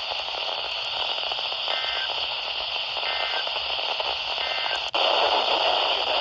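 Steady weather-radio reception hiss and static, with three short two-tone digital data bursts about 1.4 seconds apart. They are the end-of-message code that closes a NOAA Weather Radio required weekly test. The static gets louder near the end.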